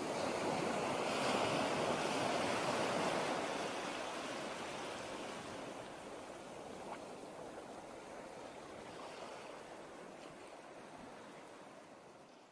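Ocean surf washing as a steady hiss, swelling slightly about two seconds in and then fading slowly away.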